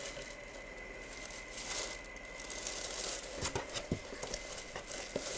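A signed jersey being handled and lifted out of its cardboard box: rustling and crinkling, with a few sharp knocks in the second half.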